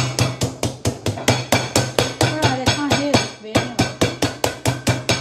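Wooden meat mallet pounding a chicken breast through plastic film on a chopping board with a cloth laid underneath to deaden the knocks. Quick, even blows about five a second, with a short pause about three and a half seconds in.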